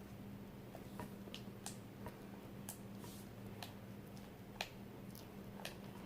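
Faint, irregular light clicks and small taps, about a dozen spread through, from glue and shaving foam being handled in a plastic pot for slime, over a low steady hum.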